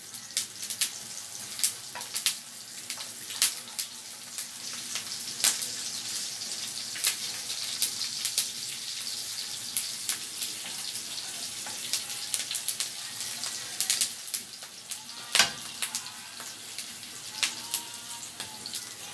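Pork belly slices frying in butter in a non-stick pan: a steady sizzle with frequent sharp pops and crackles, the meat nearly cooked through.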